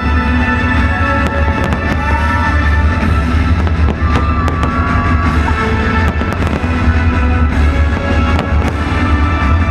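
Fireworks going off in many sharp bangs and crackles over loud music with a heavy bass.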